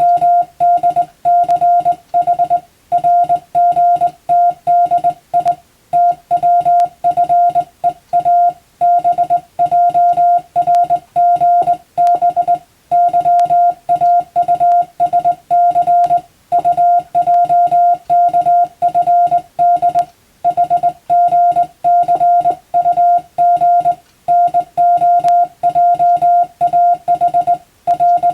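Morse code (CW) tone of about 700 Hz keyed on and off in quick dots and dashes, sending practice telegram text in Latin letters by hand, with short pauses between words every few seconds.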